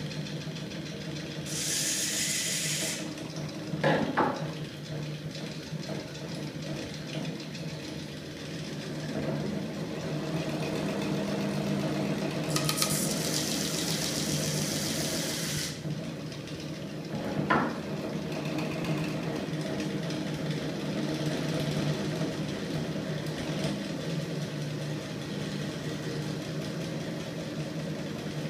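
Home-built magnet crankshaft engine rig, driven by a small 24 V electric motor, running with a steady mechanical hum. Two bursts of hiss, one near the start and one about halfway through, and two sharp knocks.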